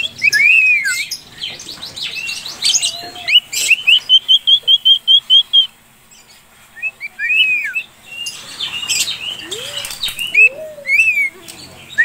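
Cockatiels chirping: repeated arching chirps, with a fast run of short, even chirps of about five a second from a few seconds in until about halfway. A few lower sliding calls come near the end.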